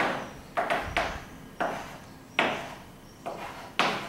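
Chalk striking and scraping across a blackboard as short lines are drawn: a series of sharp strokes, about one every half second, each fading quickly.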